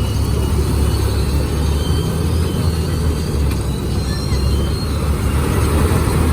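Paddy harvester running steadily: a loud, even, low engine drone with no change in speed.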